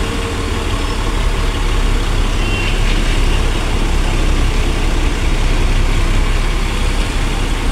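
Bus engine running with a steady low rumble, heard from inside the driver's cab as the bus moves slowly.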